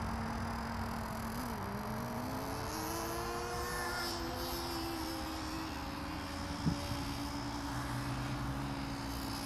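Thunder Tiger ST1 radio-controlled truck running, its motor holding a steady hum that dips and then rises in pitch as it drives. One sharp click about two-thirds of the way through.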